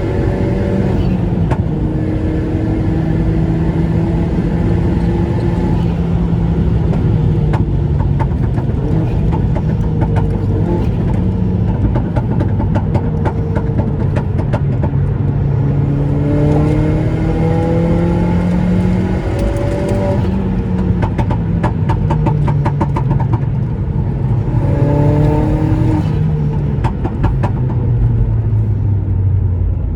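Seat Leon's 1.8T 20-valve turbocharged four-cylinder engine being driven hard through the gears, its pitch climbing and then dropping back at each shift. Rapid fluttering chatter from the turbo follows each lift of the throttle, about three times.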